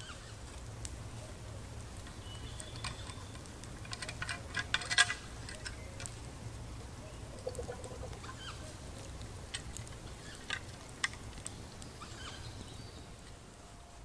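Scattered sharp clicks and knocks, bunched together about four to five seconds in, over a low steady rumble, with a few brief high chirps.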